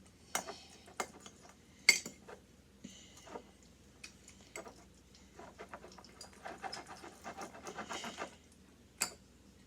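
A fork clicking and scraping against a bowl as glue and activator are stirred into slime, in irregular strokes with a faster run of stirring about six to eight seconds in.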